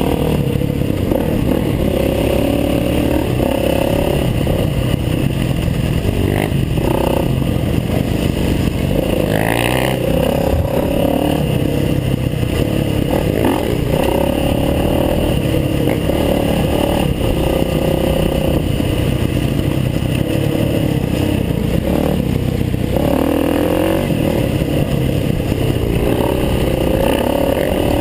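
Dirt bike engine heard from on the bike while riding a rough trail, its pitch rising and falling again and again as the throttle is opened and closed, with clatter from the bike over the rocky ground.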